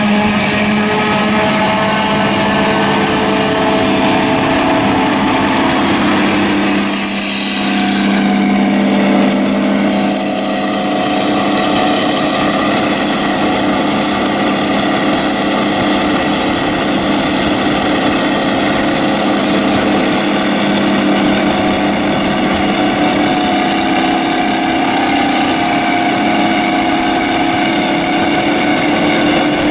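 Farm tractor diesel engines running steadily under load during corn silage work. The engine note dips and changes pitch about seven seconds in, then runs steadily again.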